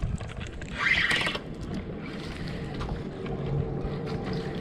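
Water lapping and sloshing around a kayak beside a bridge piling, with scattered small ticks of handling and a brief louder rush about a second in, as a hooked sheepshead is brought up.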